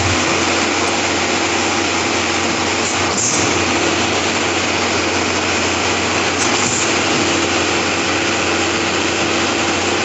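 Diesel engine of a trailer-mounted concrete pump running steadily, with a brief swish about every three and a half seconds.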